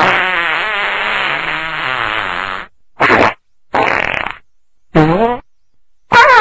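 A series of fart sounds: one long, wavering fart of about three seconds, then four short ones in quick succession.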